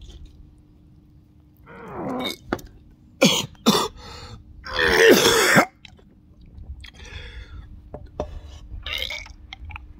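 A man gagging and retching in several short bouts, the longest and loudest about five seconds in: a reaction to the stench of a freshly opened can of fermented Baltic herring (surströmming).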